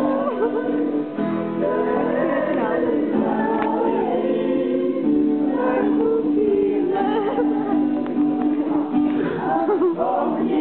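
A choir singing from a score, with held lower notes under a moving upper melody.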